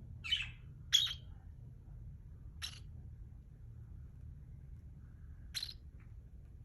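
Cockatiel giving four short chirps: two close together in the first second, then single ones near the three-second mark and near the end.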